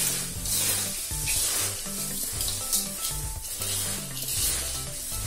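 Dry, crisp puffed rice, fried corn poha flakes and peanuts rustling and crackling as hands toss and mix them in a large aluminium pan, in uneven bursts of a hissing rustle.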